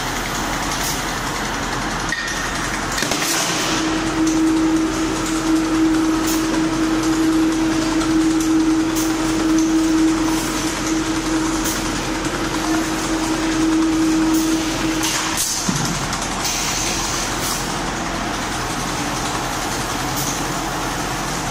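Heavy machinery running steadily, with a single steady tone held for about twelve seconds, starting a few seconds in.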